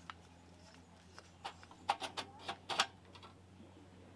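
A few light clicks and knocks in quick succession, about eight over two seconds in the middle, over a faint low steady hum: something being handled.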